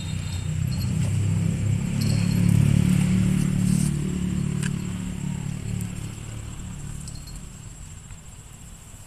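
Low rumble of a passing motor vehicle, swelling over the first three seconds and then fading away, with a few light clicks from the fishing rod and reel.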